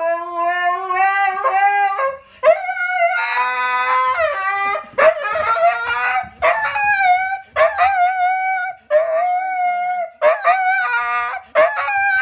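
Husky howling in a series of long calls that bend up and down in pitch, with short breaks between them.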